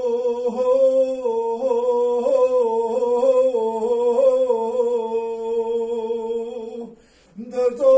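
A man singing unaccompanied, holding one long, wavering, ornamented line that breaks off just before the end; after a short breath he starts the next phrase.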